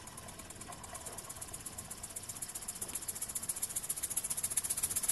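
ENJOMOR model vertical steam engine running fast, its exhaust chuffing in rapid, even puffs with a light rattle that grows steadily louder.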